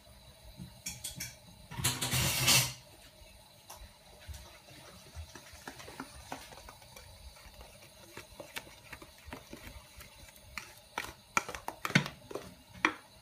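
Butter melting in a saucepan over the heat, sizzling with scattered pops and crackles that grow more frequent near the end. A louder rushing noise lasts under a second about two seconds in.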